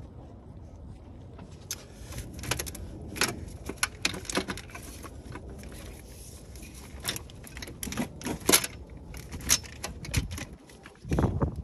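Irregular metallic clinks and rattles of hand tools and parts being handled in a car's engine bay, with a duller knock near the end.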